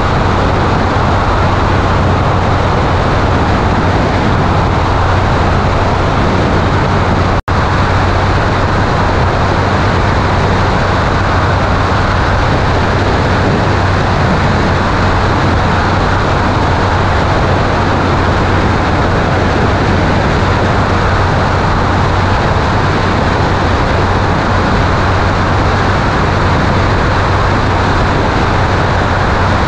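Zenith STOL 750 light aircraft in flight, heard from a camera mounted out on the wing: a steady engine-and-propeller drone under a loud rush of airflow over the microphone. The sound cuts out for an instant about seven and a half seconds in.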